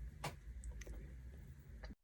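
Quiet room tone with a few faint clicks, about three of them spread across two seconds.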